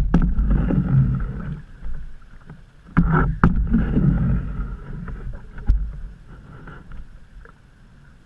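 Canoe being paddled on fast-moving floodwater: paddle strokes and water splashing, with bursts of low rumbling and a few sharp knocks. It goes quieter in the last couple of seconds.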